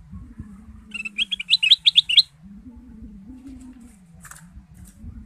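Caged kutilang emas bulbul singing a quick string of about ten bright, rising whistled notes about a second in, followed by a few faint short chirps near the end.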